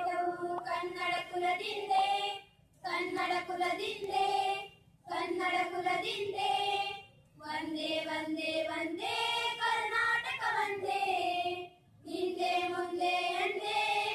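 A group of schoolgirls singing a song together into handheld microphones, in sung phrases of a few seconds broken by short pauses for breath.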